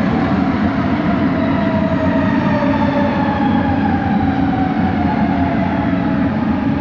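Bombardier Innovia ART 200 train running, heard from inside the car: a steady rumble under the whine of its linear induction motors, whose pitch glides upward and then eases off a little near the end.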